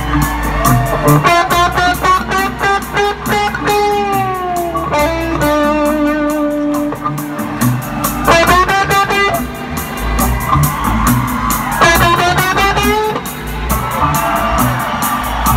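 Rock band playing live at full volume: a lead electric guitar with bent, sliding notes over steady drums and bass.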